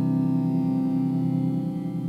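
Instrumental background music with long, held notes.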